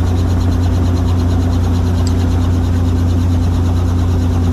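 Helicopter running steadily: a loud, even drone of rotor and engine.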